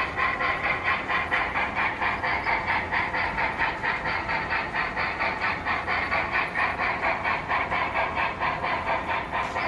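Model train running on a layout, a steady clatter with a fast, even rhythm.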